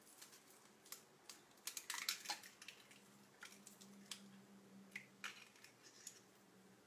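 Faint, scattered light clicks and taps of eggs being separated by hand, eggshell halves handled over a steel mixing bowl, with a cluster of clicks about two seconds in, over a faint steady hum.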